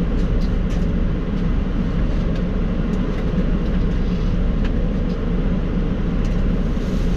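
Semi-truck's diesel engine idling, a steady low hum heard inside the cab, with faint clicks from a plastic takeout container being opened and handled.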